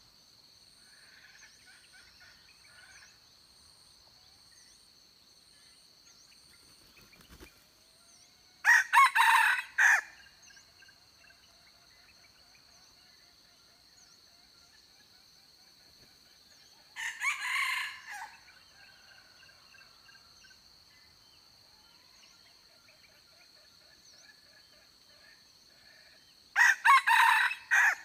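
Decoy junglefowl rooster crowing three times, roughly nine seconds apart, each crow about a second and a half long.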